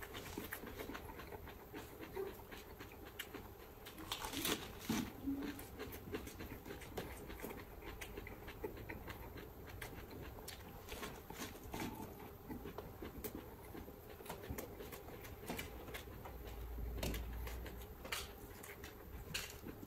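A person chewing raw lettuce leaves, with irregular crisp crunches, wet mouth sounds and breathing, and the leaves crackling as they are handled; the loudest crunches come about four to five seconds in and again near the end.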